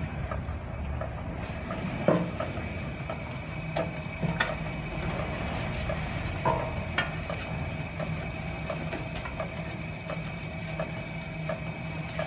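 Cow dung log-making machine running steadily, extruding a log of dung through its outlet pipe: a constant mechanical hum with scattered clicks and knocks, the sharpest about two seconds in.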